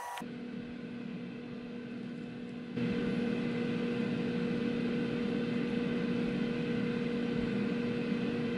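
Steady machine hum with a low tone and its octave over a hiss, growing louder about three seconds in.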